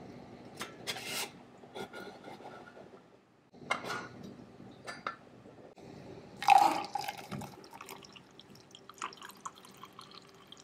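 Coffee made in a stainless steel French press: handling and clicks as the plunger is pressed down, then coffee pouring into a ceramic mug, with one sharp clink about six and a half seconds in.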